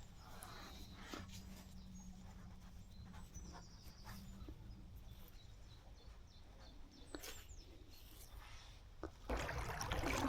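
Quiet outdoor riverside ambience, faint, with a few soft clicks; a louder rush of noise comes in about nine seconds in.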